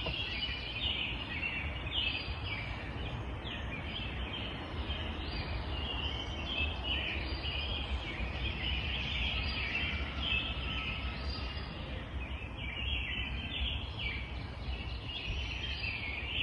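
Many birds chirping and chattering without a break, over a low steady rumble.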